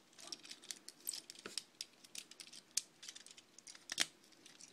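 Plastic parts of a small transforming robot toy clicking and rattling in quick, irregular succession as it is folded by hand into car mode, with a sharper snap about four seconds in.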